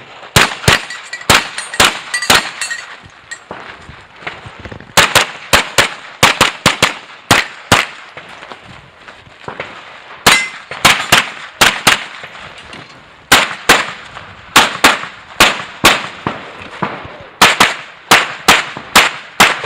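Rapid strings of pistol shots during a practical pistol stage, often two or three in quick succession, broken by pauses of one to two seconds.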